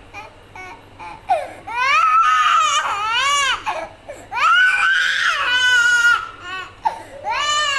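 A young child crying: repeated high, wavering wails with short breaks for breath, starting about a second in, the longest about halfway through.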